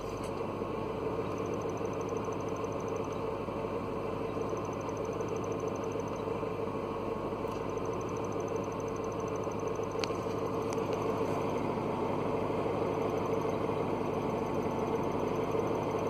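Mercedes W202 C230 Kompressor's supercharged four-cylinder engine idling, with a steady squeak that sounds like a squeaking belt but comes from a clutch release bearing that is starting to fail.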